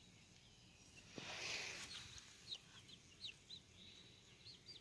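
Faint, high peeping of young chicks: a scattered string of short chirps, with a brief rustle about a second in.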